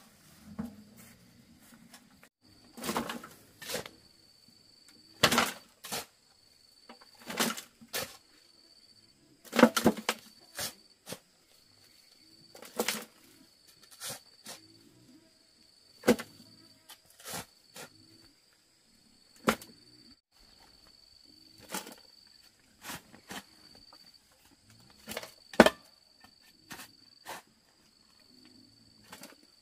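Steel shovel scraping into soil and tipping clods of dirt into a metal wheelbarrow, with a scrape or thud every one to three seconds.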